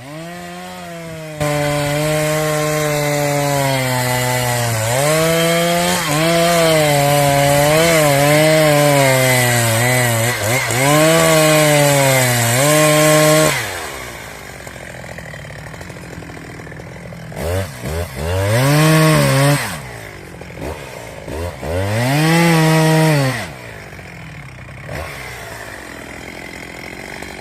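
Two-stroke chainsaw cutting at full throttle, its pitch dipping and recovering as the chain bites into the wood. After about 13 seconds it drops to idle, then revs briefly twice, a few seconds apart.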